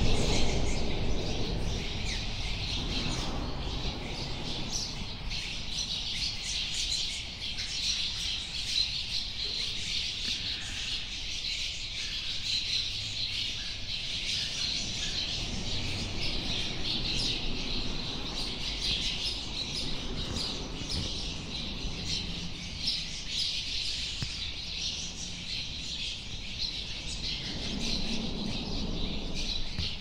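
A colony of cliff swallows calling without pause, a dense chatter of many short, squeaky chirps overlapping.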